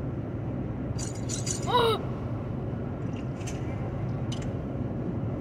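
Steady low road rumble of a vehicle driving on a highway. Just before two seconds in, a short high-pitched vocal sound rises and falls, the loudest moment.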